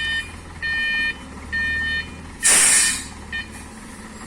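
A heavy vehicle's reversing alarm beeping, three even beeps about a second apart that stop about two seconds in, over a low diesel engine running. Just after, a loud, short hiss.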